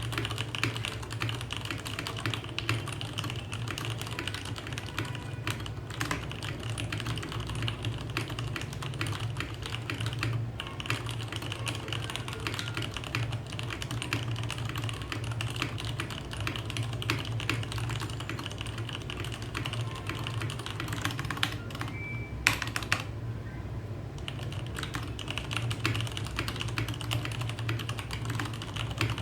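Fast, continuous typing on a Leopold FC660M mechanical keyboard with Cherry MX Red linear switches: a dense stream of key clacks, with one louder strike and a brief lull about 22 seconds in.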